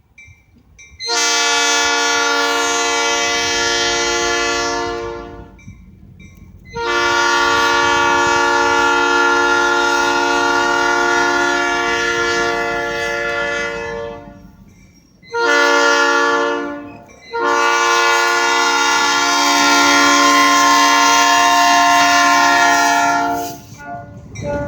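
Locomotive air horn sounding the grade-crossing signal: two long blasts, a short one, then a final long one, a steady multi-note chord each time, as the train approaches the crossing.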